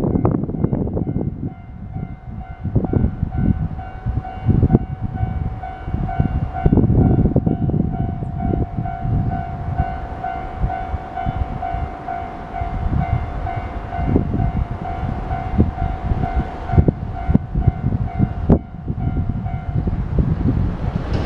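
Japanese railway level-crossing warning bell ringing, a steady repeating electronic tone, stopping near the end. Heavy wind buffets the microphone underneath it.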